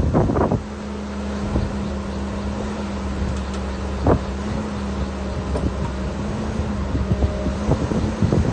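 Excavator diesel engine running steadily, with sharp knocks: a loud one at the start, another about four seconds in, and a few smaller ones near the end.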